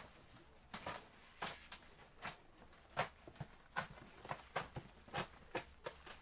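Clear plastic protective film crinkling and crackling as it is handled, in short irregular crackles about two or three a second.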